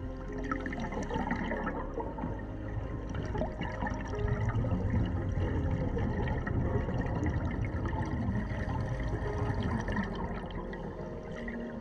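Underwater bubbling and gurgling of scuba divers' exhaled air, a crackling, gurgling rush heard underwater, growing louder about four seconds in.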